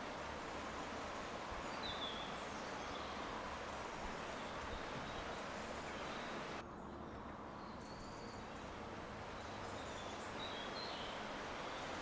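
Outdoor countryside ambience: a steady rushing background with a few short bird chirps, about 2 s in and again near the end. The hiss thins out suddenly a little past halfway, at a cut.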